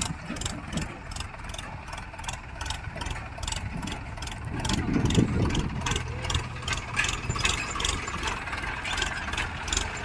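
Diesel engine of earth-moving and farm machinery running near idle, with a regular ticking a few times a second; it grows louder for a moment about halfway through.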